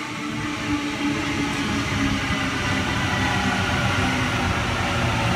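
Sydney Trains Waratah double-deck electric train running alongside the platform, its wheel and track rumble growing louder as it draws level. A steady electric hum sits under it, with a higher motor whine that falls slightly in pitch.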